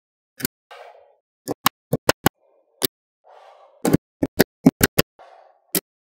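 Small magnetic balls clicking as pieces snap together: about fifteen sharp clicks in irregular clusters, with short soft rattles of balls shifting between them.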